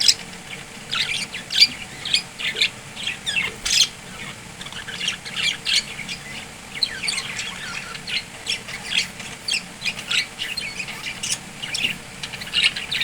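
A group of budgerigars chattering and squawking, with many short, overlapping calls several times a second, some sweeping down in pitch.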